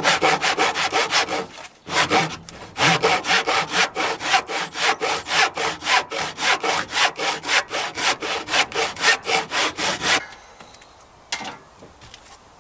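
Hand saw cutting wood in quick, even strokes, about four a second. There is a short break about two seconds in, and the sawing stops about ten seconds in.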